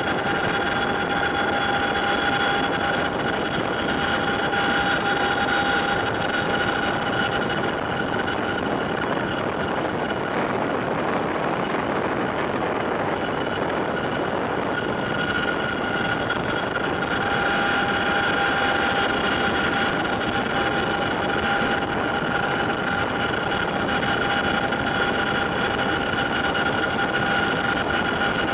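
Cabin noise of a CH-47J Chinook tandem-rotor helicopter in flight: a constant rush from the twin turboshaft engines and rotors, with a steady high whine over it. The whine weakens in the middle and comes back.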